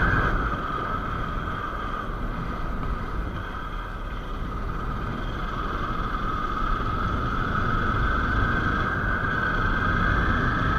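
Motorcycle riding along, heard from the rider's own microphone: the engine's steady running note over a low wind rumble. The engine note eases off a little about two seconds in and builds back up over the second half.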